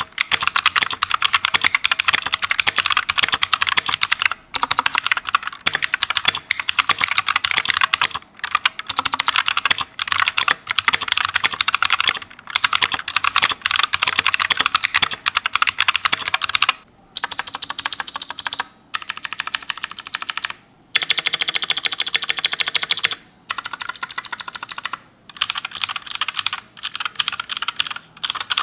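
Continuous typing on a Leaven H68 65% mechanical keyboard fitted with blue (clicky) switches: a dense, rapid stream of keystroke clicks, broken by short pauses every few seconds. The switches are really noisy.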